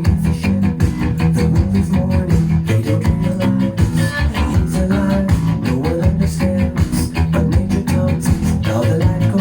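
Instrumental passage of a 1980s synth-pop song: a steady drum beat under bass and a melodic lead line, with no vocals.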